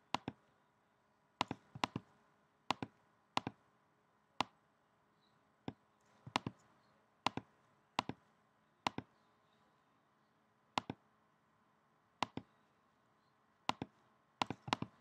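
Computer mouse and keyboard clicks: about twenty sharp, separate clicks at an uneven pace, some in quick pairs, against a quiet room.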